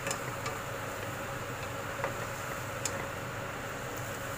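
Bok choy stir-frying in hot oil in a wok: a steady sizzle, with a few sharp knocks of a wooden spatula against the pan as the greens are turned, over a faint steady hum.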